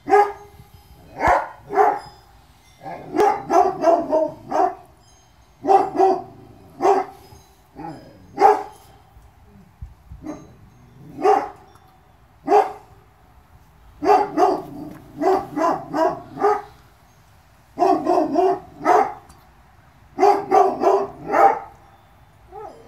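A dog barking over and over, sometimes a single bark and sometimes a quick run of several, every second or two.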